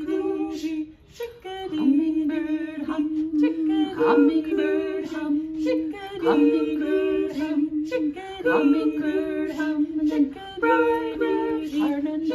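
Unaccompanied female singing of a layered vocal bird chorus, with several parts sounding at once: a steady hummed note, rising swooping calls about every two seconds, and short 'shh' hisses.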